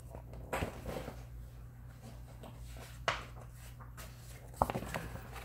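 Paper rustling and a few soft knocks from a paperback picture book being handled and its pages turned, over a steady low hum.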